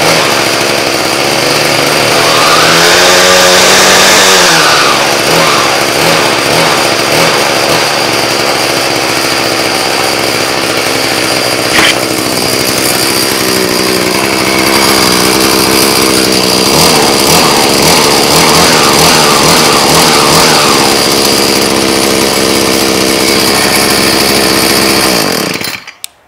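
Troy-Bilt TB70SS two-stroke string trimmer engine running soon after a cold start. It revs up and back down a couple of seconds in, runs steadily, then cuts off suddenly near the end.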